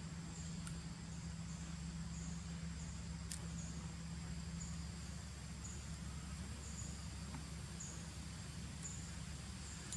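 Outdoor forest ambience: insects keep up a steady high-pitched trill, with short high chirps repeating about once a second, over a low steady hum.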